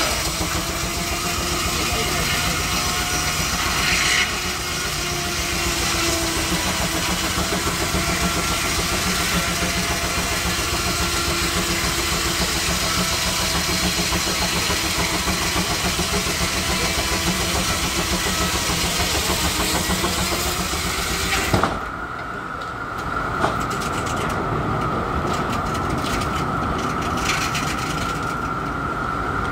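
Baker steam traction engine running a belt-driven sawmill: a steady loud hiss and clatter with a fast beat underneath. About three-quarters of the way through there is a sharp click, the hiss drops away abruptly, and a steady high hum carries on.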